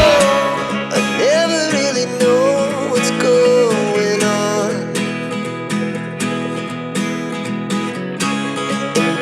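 Background music led by guitar, with a wavering melody line over a steady accompaniment.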